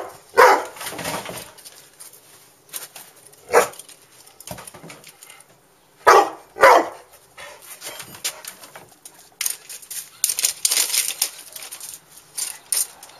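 Chocolate Labrador barking at a robotic toy dog, several single barks a few seconds apart, the loudest near the start and about six seconds in. From about nine seconds in there is a rapid run of sharp clicks and rattles as the Labrador mouths the plastic toy.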